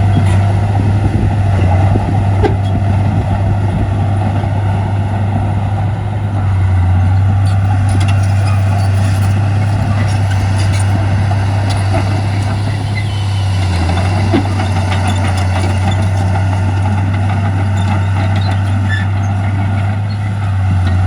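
Diesel engine of a heavy earthmoving machine running steadily with a low drone, with a few faint knocks.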